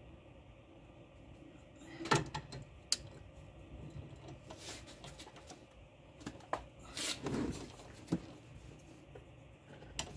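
Scattered metal clinks and knocks of hand tools working on a sway bar end link nut, with the loudest knocks about two seconds and seven seconds in.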